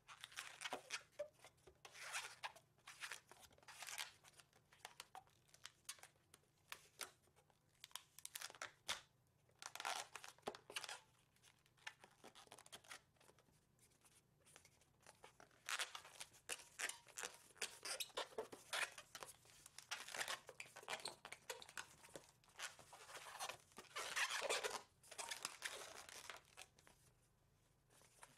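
Latex 260 modelling balloon being twisted and handled, its rubber squeaking and rubbing in short irregular runs.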